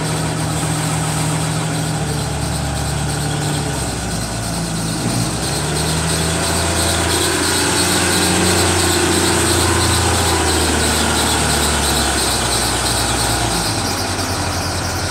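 Hyundai HL740-7 wheel loader's diesel engine running under hydraulic load as the bucket is raised and lowered. The engine note grows louder and heavier from about six seconds in, then eases off about three seconds before the end, with a thin high whine over it throughout.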